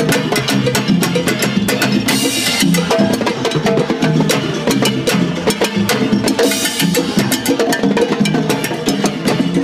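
Salsa music with timbales and cowbells struck with sticks in a quick, dense rhythm over pitched bass and melody.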